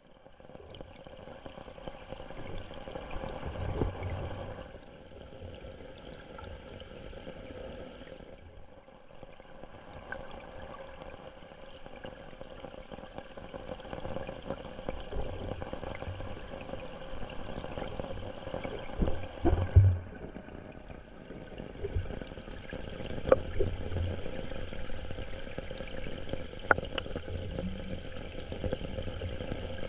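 Flowing water of a shallow rocky stream heard from under the water, with a steady hum and a few knocks, the loudest about twenty seconds in.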